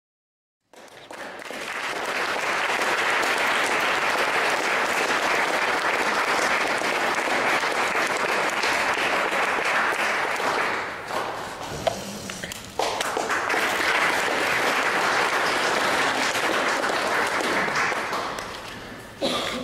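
Audience applauding, swelling in the first second or two. It dies down about eleven seconds in, then breaks out again suddenly and carries on before fading near the end.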